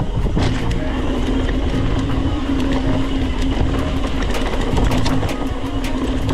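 Mountain bike rattling and rolling over a rough dirt trail, a dense continuous clatter with many sharp clicks.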